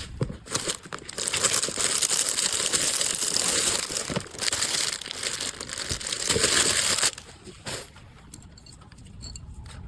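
Plastic packaging crinkling and rustling as it is handled while an order is packed, loud for several seconds, then a few quieter handling clicks and rustles near the end.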